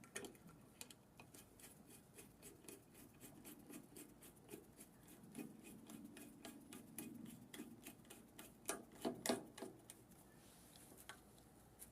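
Faint, quick clicking of a quarter-inch socket ratchet turning screws into the vacuum motor housing, about five clicks a second, with a few louder clicks near the end.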